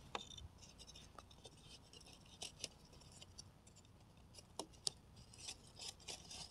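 Faint, irregular clicks and scrapes of thin dry wooden sticks being fitted and pressed together onto a log-cabin-style stick cage trap.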